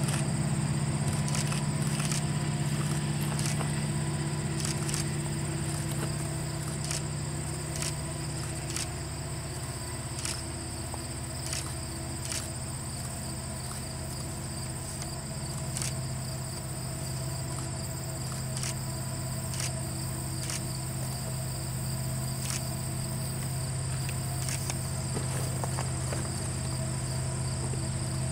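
Diesel locomotive of an ore train working in the distance: a steady low engine drone that dips, then grows louder over the last several seconds as the train approaches. Insects buzz and click over it.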